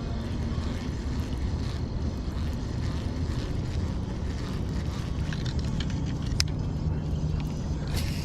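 A steady low motor-like hum, with a couple of sharp clicks in the second half.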